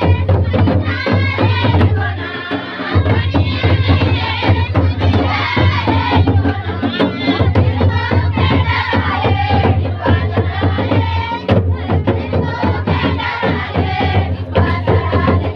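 Live folk drumming on a large kettledrum beaten with sticks and a double-headed barrel drum, in a dense, steady beat, with group singing over it.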